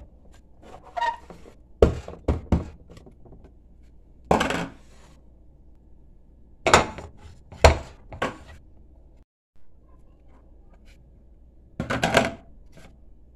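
Plastic gelatin molds and plates being handled on a countertop: several short knocks and clatters, a second or more apart.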